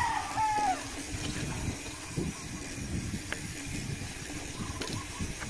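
A rooster crow trailing off in the first second, then a steady rushing noise with a few faint knocks.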